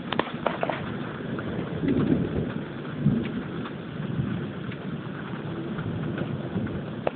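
Rain falling steadily in a thunderstorm, with low rumbles of thunder swelling about two and three seconds in, and a few sharp ticks of drops striking close by in the first second.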